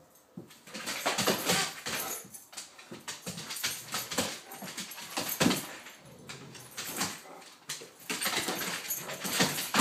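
Great Pyrenees dogs playing rough together: irregular dog noises and scuffling, getting busier about eight seconds in.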